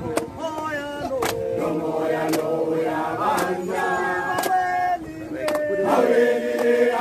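Crowd singing a protest chant together, several voices holding long notes, with a sharp beat about once a second.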